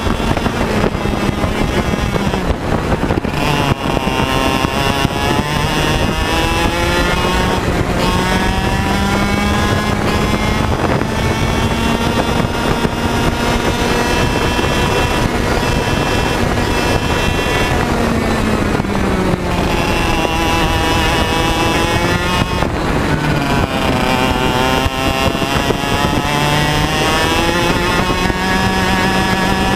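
A single-cylinder two-stroke TaG 100 racing kart engine heard from on board at race pace. The pitch climbs steadily down each straight, then drops sharply off the throttle into the corners and sweeps back up on the exit, several times over.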